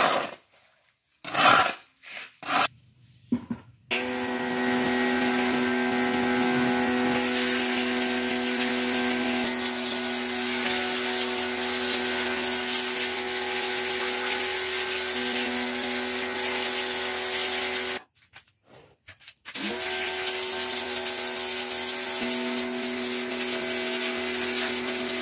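A few short scraping strokes, then a pressure washer runs steadily, its motor hum under the hiss of the water jet blasting dirt off freshly cast aluminum termite-mound castings. It stops for a second or two about two-thirds of the way through, then starts again.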